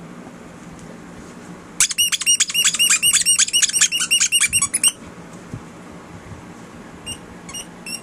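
Rubber squeaky dog toy squeezed over and over: a fast, even run of high squeaks, about five a second for some three seconds, then a few single squeaks near the end.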